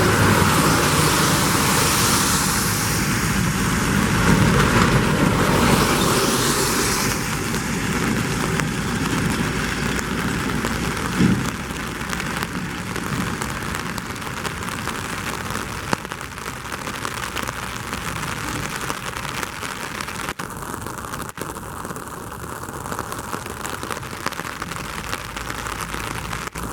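Steady rain falling, with a louder rushing noise over the first several seconds that fades away. There is a brief knock about eleven seconds in.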